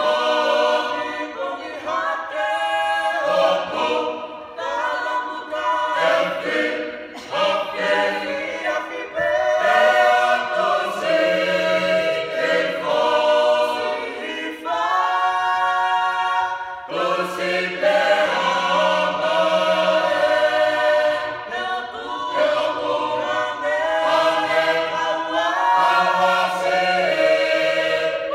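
Tongan church choir of men and women singing a cappella, several voice parts in harmony with the men's low parts under the women's higher ones.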